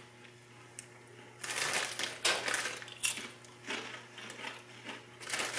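A person chewing crunchy snack chips close to the microphone: a quiet start, then a series of crisp crunches beginning about a second and a half in.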